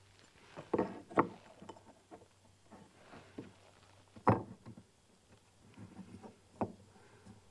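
Several separate knocks and taps on wood from hands working at a wooden sign board while standing on a wooden ladder. The loudest come about a second in and just past four seconds, with lighter ones in between.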